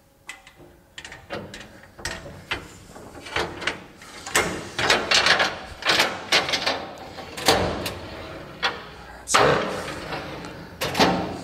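Steel drawer of a Lista modular drawer cabinet being set onto its metal slides and pushed in: a run of metal clicks, sliding scrapes and rattles, with a few sharp knocks as the drawer seats.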